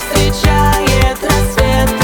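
Background music with a steady upbeat drum beat, bass and melody, in an Afrobeat-like style.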